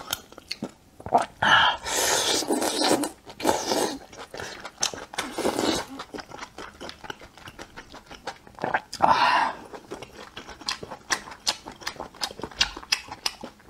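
Close-up mouth sounds of eating oysters in chili-garlic sauce: wet chewing and many small smacking clicks, with a few louder stretches about a second long.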